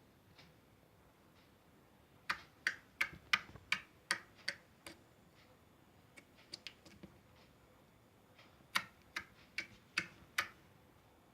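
Slime being poked and pressed, making sharp clicking pops in bursts: about eight quick clicks after two seconds, a few faint ones halfway through, and five loud ones near the end.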